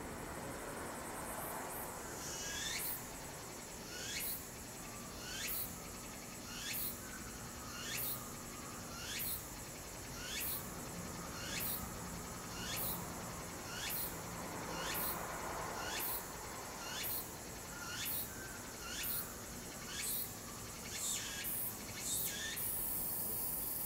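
Cicada singing: a short phrase repeated about once a second, each note falling in pitch. The phrases quicken near the end and run into a continuous high buzz.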